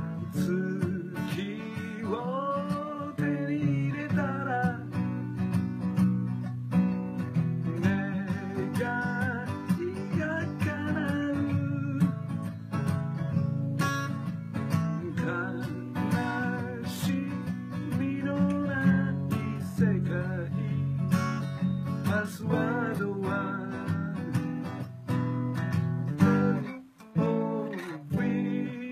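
Acoustic guitar strummed steadily with a man singing at times. The playing drops away briefly about 27 seconds in, then comes back with a loud strum.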